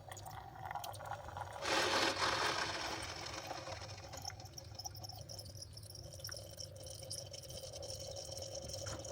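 Bosch Tassimo pod coffee machine brewing an espresso pod: the machine runs steadily while coffee streams into the cup, with a louder rushing surge about two seconds in.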